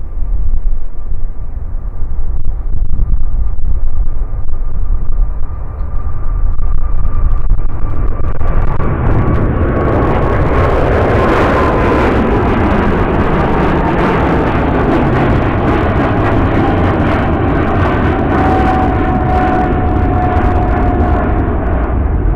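Heavy jet airliner's engines passing close. A whine slowly falls in pitch, and about eight seconds in the engine noise swells into a loud, crackling rush that then holds steady.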